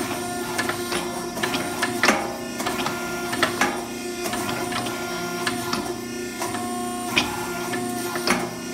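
Hydraulic power pack of a 16-ton forging press running with a steady hum while the dies squeeze a hot steel bar, with sharp clicks scattered throughout.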